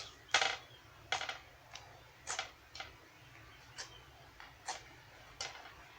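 Purple-tinted clear glitter slime being squeezed and played with by hand, giving about eight short, wet clicky pops at irregular intervals.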